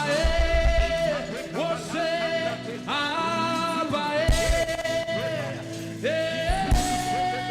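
Live church worship music: a singer holds long sustained notes over a band with drums.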